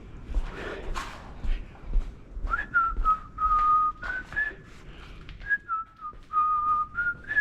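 A person whistling a tune, a string of held notes stepping up and down in pitch, starting about two and a half seconds in. Short scattered rubbing and scuffing sounds are heard alongside.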